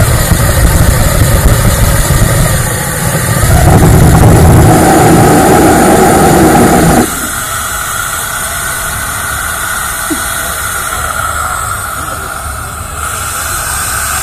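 Small ramjet engine running on a test stand, a loud rushing noise that grows louder and takes on a steady tone about three and a half seconds in, then cuts off suddenly about seven seconds in, leaving a quieter steady hiss.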